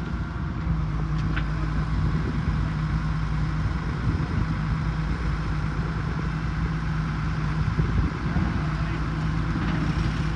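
An engine or heavy machine running steadily with a constant low hum.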